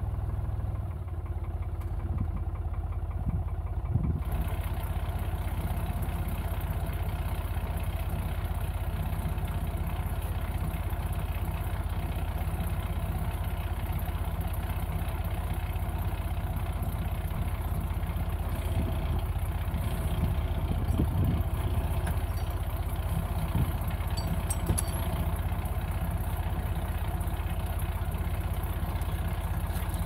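Tractor diesel engine idling steadily behind a rear-mounted forestry winch, with a few brief knocks.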